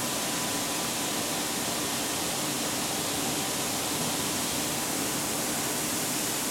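Steady hissing noise with a faint hum under it, unchanging throughout.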